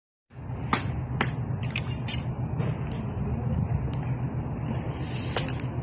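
Steady low rumble with a few sharp clicks and rustles over it.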